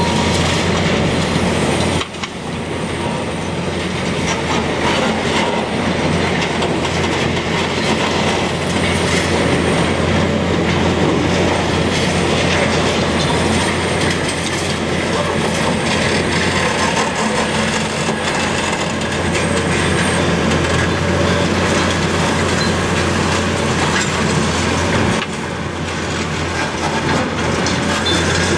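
Heavy diesel machinery running on a demolition site: a steady low engine hum under continual clattering and rattling of metal and rubble. The sound shifts abruptly about two seconds in and again near the end.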